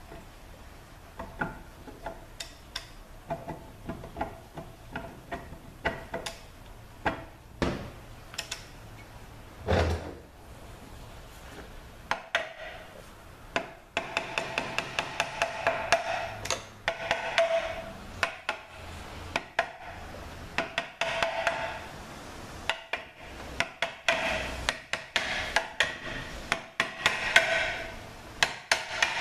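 Sharp metallic taps and knocks on the internal parts of a Ford 6F35 automatic transmission as a stuck component is worked loose so it can be lifted straight out of the case. The knocks are sparse at first, then come as a quicker run of taps with a light metallic ring from about halfway.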